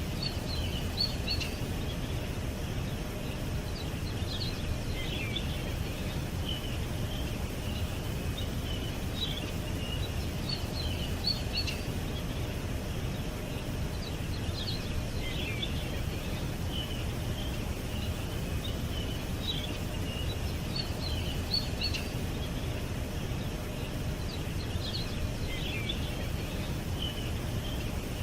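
Small songbirds chirping, short high chirps and calls coming every second or so, over a steady low rumble of background noise.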